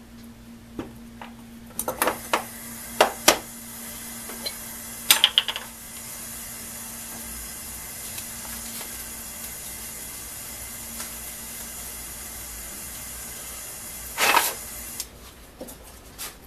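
Small metal parts of a rotary hammer's mechanism clicking and knocking against each other and the steel bench top. Then a steady hiss for about ten seconds, broken by a short scrape near the end.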